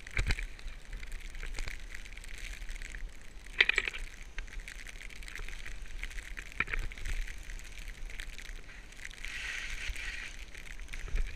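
Skis scraping and hissing over snow in uneven bursts as the skier turns, with a sharp louder scrape about a third of the way in and a longer hiss later on.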